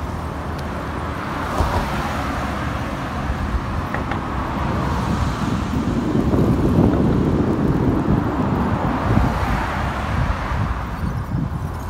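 Steady motor traffic on the highway alongside, with a low wind rumble on the microphone of a camera riding on a moving bicycle; a vehicle passes close, swelling loudest from about six to nine seconds in.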